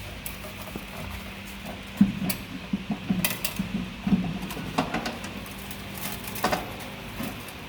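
Irregular clicks and light knocks of metal parts and screws being handled while a wire feeder is fastened onto a laser welding machine, most of them in the middle and one more near the end, over a faint steady hum.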